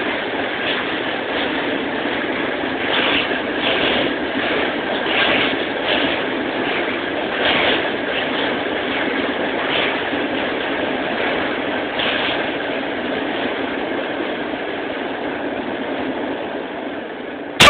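Passenger train running past, a steady rail rumble with irregular wheel clacks over the rail joints. It ends with one sharp loud click.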